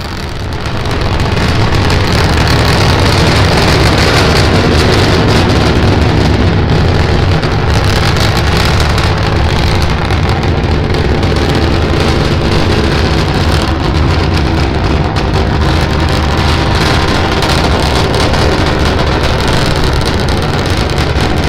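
Starship SN10's three Raptor rocket engines firing during the climb after liftoff: a loud, steady roar that swells over the first couple of seconds, then holds.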